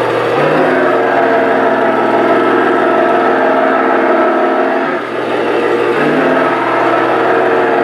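A motor vehicle engine running and revving, its pitch stepping up about half a second in and again near the end, with a brief drop about five seconds in.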